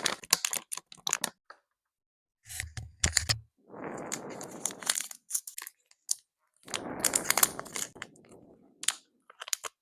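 Bee bread being crunched and chewed close to the microphone, in bursts of sharp crackles and clicks. Two longer breathy rushes of noise come between them, around the middle and again later on.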